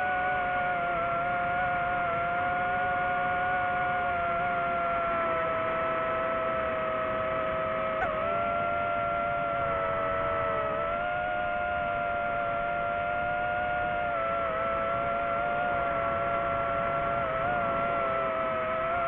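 DJI FPV drone's motors and propellers whining steadily, a held two-note hum whose pitch dips and recovers briefly a few times with throttle changes.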